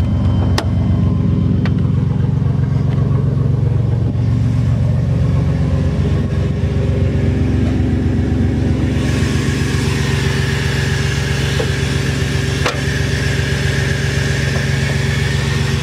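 Old Ford van's engine idling steadily, with a few sharp clicks near the start and about 13 seconds in.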